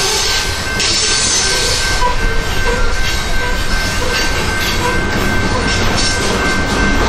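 Freight train of covered hopper cars rolling past close by: a steady rumble and rattle of wheels on the rails, with a thin steady high whine over it.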